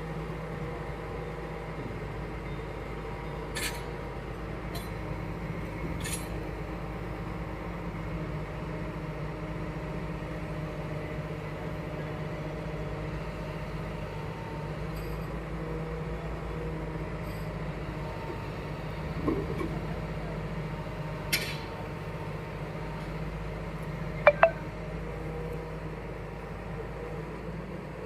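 Diesel engine of a JCB hydraulic excavator running steadily, with a few sharp metallic clinks and a brief high squeak near the end.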